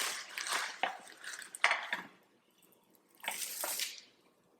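A utensil scraping and clinking against a pan as toasted nuts are moved around, with sharp clinks about one and two seconds in and another short scrape after a pause.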